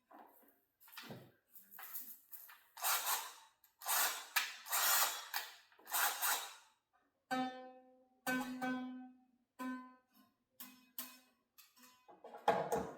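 Strings of a stringed instrument plucked one at a time while it is being tuned, with a few brighter, rougher plucks in the middle and then the same note plucked over and over near the end, checking a string's pitch.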